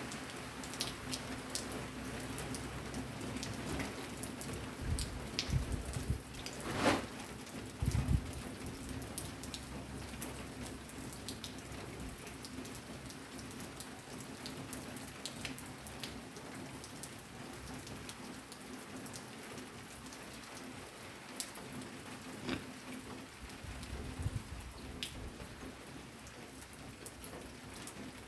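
Rain falling steadily, a constant hiss with many individual drops ticking sharply close by. A few short low thumps stand out around five to eight seconds in and again near the end.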